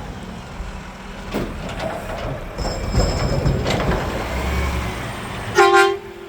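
Mack front-loader garbage truck running with a low engine rumble, and a few sharp knocks and clanks. A loud, short beep comes near the end.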